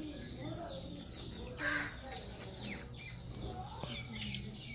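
Small birds chirping in the background, with faint murmured voices and one brief noise about a second and a half in.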